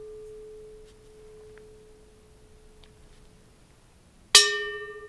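Bronze Japanese Buddhist bell ringing: the single clear tone of a strike just before fades slowly away. About four seconds in it is struck again, a sharp bright hit that settles back into the same ringing tone.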